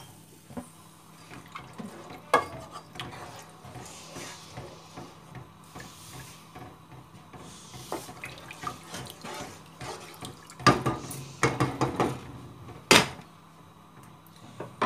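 Wooden spatula stirring a thin, watery masala in a nonstick pot: liquid sloshing with scattered knocks of the spatula against the pot, busier about two-thirds of the way through. Near the end comes one sharp clack, likely the glass lid being set on the pot.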